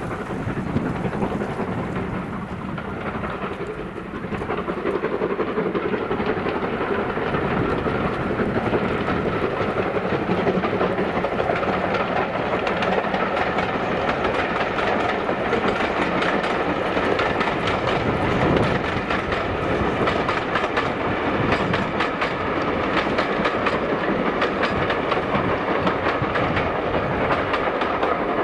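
Steam-hauled passenger train running past: a steady rumble with rapid clicking, growing louder from about four seconds in.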